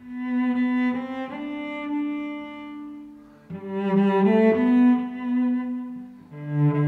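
Slow background music on a bowed string instrument, playing long held notes: one phrase that fades away, then a second phrase entering about halfway through.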